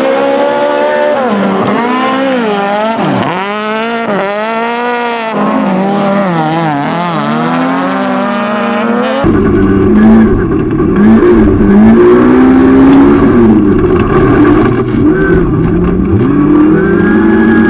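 Rallycross car engines at race speed, their pitch rising and falling repeatedly as the drivers rev through gear changes. About nine seconds in, the sound changes abruptly to a racing car's engine heard from inside its cabin: louder and deeper, with a heavy rumble.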